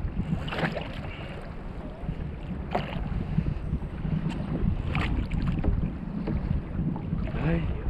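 Wind buffeting the microphone on open water, with a short splash of water against a kayak's hull every two seconds or so.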